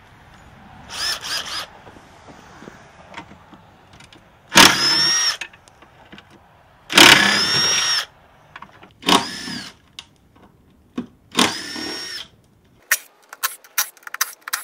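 Cordless power driver backing out the bolts around the battery pack's case in five short bursts, its motor whine rising in pitch at the start of each run and then holding. Near the end comes a quick run of sharp clicks and knocks.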